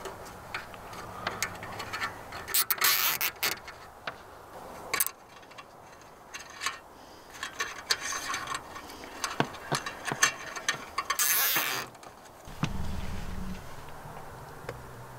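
Plastic zip ties being pulled tight around solar-panel cables: two quick ratcheting rasps, about 3 seconds in and about 11 seconds in, with small clicks and cable handling between. A low hum starts near the end.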